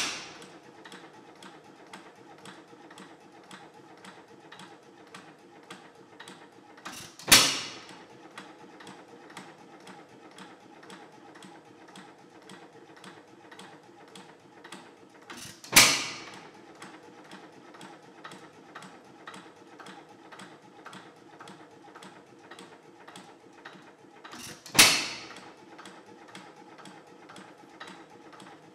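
Antique single-cylinder hit-and-miss engine running on its own, coasting on its flywheels with a fast, even mechanical ticking and firing with one loud bang about every eight and a half seconds, three times. The long coasts between firings mean it is idling with almost no load.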